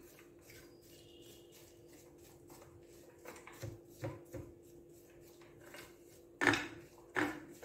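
Spatula stirring chopped fruit and nuts in a glass dish: faint scrapes and clicks, a few soft thuds around the middle, and two sharper knocks near the end as it strikes the dish.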